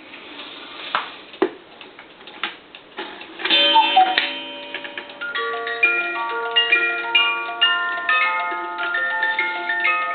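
One-day cuckoo clock ticking with mechanism clicks, then the cuckoo's two-note call about three and a half seconds in. From about five seconds in, its music box plays a tune.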